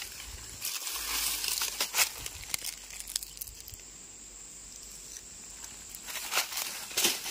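Footsteps on dry fallen leaves, crunching and crinkling in bursts, with a quieter pause in the middle.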